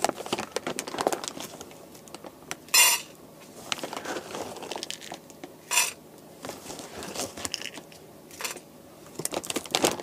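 Dog food being readied: a food bag crinkling and a bowl clattering, with three short rattles about three seconds apart.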